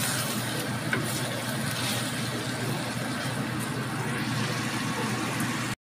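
Steady rushing kitchen noise with a low hum under it, over which a spatula lightly scrapes and stirs egg balado sauce in a metal wok on a gas stove; the sound cuts off suddenly near the end.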